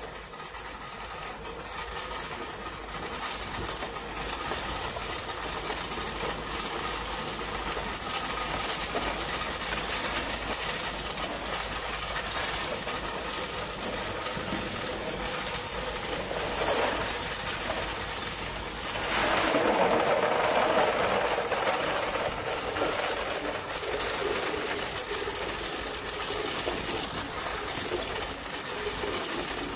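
Tube ice machine harvesting: cylinders of ice clattering down the steel discharge chute into a plastic basin over the machine's steady mechanical rattle. The clatter swells louder for a few seconds about two-thirds of the way through.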